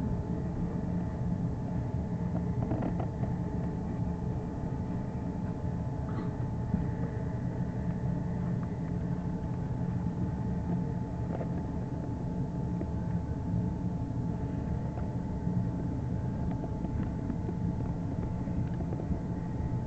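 Steady low rumble of a ship's engines and machinery while the ship is under way, with a faint steady hum above it.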